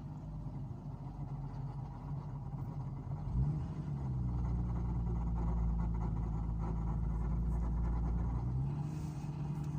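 Nissan R33 GT-R's RB26 twin-turbo straight-six running at idle. About three and a half seconds in the note shifts and a louder, deeper rumble holds for about five seconds, then drops back near the end. This is the kind of noise the owner traced to a worn clutch throw-out bearing.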